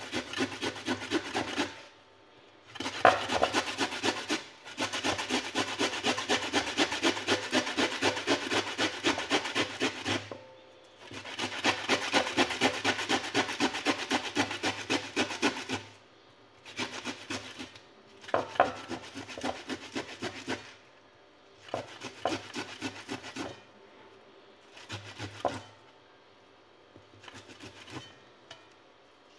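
Ginger being grated by hand on a flat stainless-steel grater: quick rasping strokes, about four a second, in bursts of a few seconds with short pauses between them. The bursts grow shorter and fainter in the second half.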